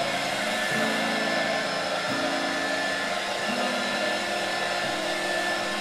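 Handheld heat gun blowing steadily over wet acrylic pour paint, its fan running with a faint steady whine.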